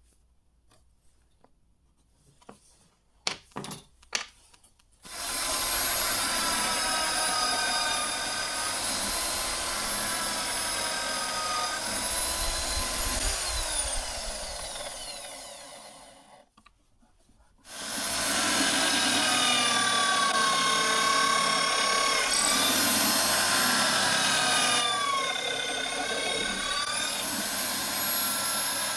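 A few knocks, then an electric drill in a drill press runs, boring into a small wooden block, its pitch dipping and rising as it works. About halfway through it winds down and stops, then starts again and keeps drilling.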